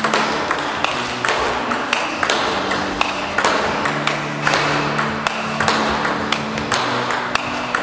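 Table tennis ball in a continuous solo rally: sharp pings of the ball off the racket, the table and a Returnboard rebound board, about three to four a second.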